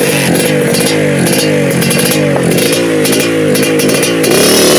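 Suzuki two-stroke trail bike engine revved in quick repeated blips, about two a second, the pitch climbing with each blip and dropping back. It is loud.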